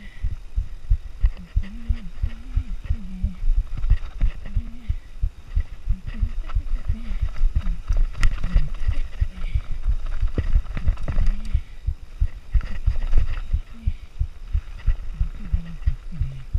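Mountain bike descending a rough downhill trail: a rapid, irregular run of low thumps from the wheels and suspension striking roots and rocks, with the frame and chain rattling.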